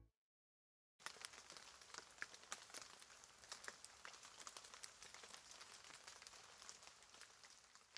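Very faint, irregular crackling made of many small ticks, starting about a second in after a moment of total silence.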